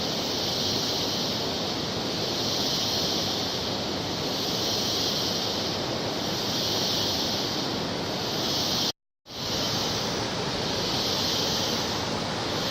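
Waterfall rushing with a steady, loud roar of water, over a high hiss that swells and fades about every two seconds. The sound cuts out completely for a moment about nine seconds in.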